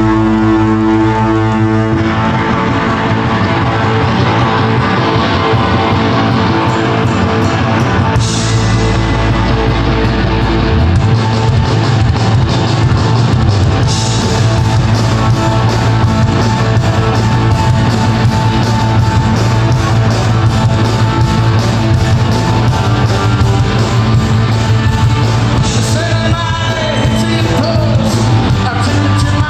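A live rock band plays loud: electric guitar, bass, drums and keyboards with a singer. It opens on held notes and the full band comes in about two seconds in.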